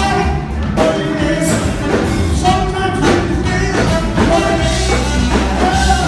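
Live jazz-blues band playing with saxophone, trombone, keyboards and drums over a steady beat.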